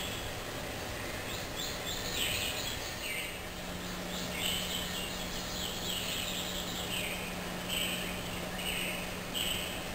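Small birds chirping in short, repeated calls, played back from a bird video for cats, over a steady hiss and a low hum.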